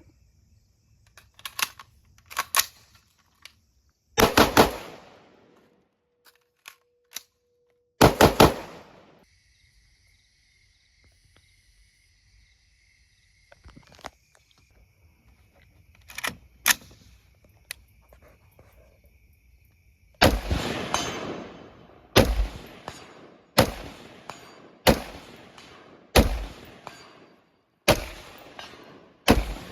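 Rifle shots heard from beside an 8-inch AR500 steel gong target, sharp cracks with ringing tails from bullets striking the steel. Scattered single and paired shots in the first half, then a steady string of shots about every second and a half in the last third.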